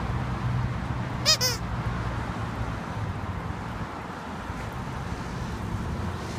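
A dog's squeaky toy squeaked twice in quick succession about a second in, a short high-pitched double squeak, over a steady low traffic hum.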